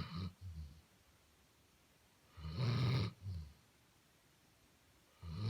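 Basset hound snoring: one long snore about two and a half seconds in, followed by a short, softer breath, with the tail of an earlier snore at the start and the next snore beginning near the end.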